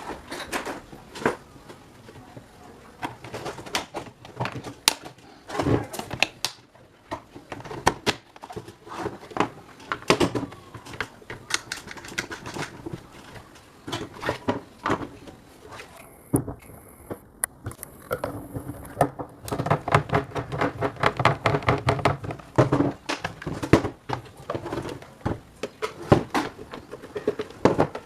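Irregular clicks and knocks of metal parts and hand tools being handled during work on an old rusty table fan, with a denser run of knocks past the middle.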